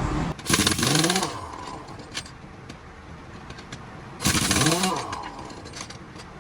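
Pneumatic impact wrench on a truck's wheel nuts: two short bursts, each spinning up and winding down in pitch, about three and a half seconds apart.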